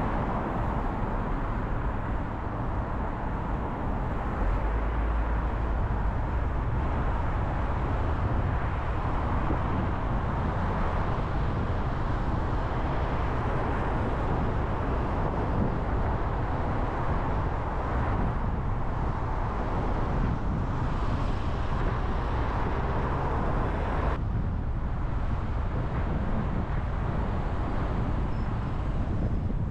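A car driving on city roads: a steady rumble of road and tyre noise with engine hum. The higher hiss thins abruptly about 24 seconds in.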